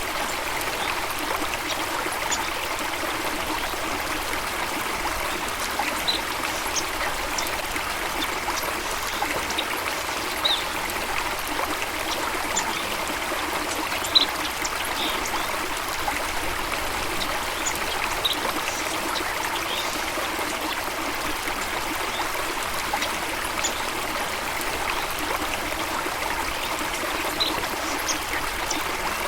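Steady rush and trickle of a flowing stream, with a few brief, high, sharp sounds scattered through.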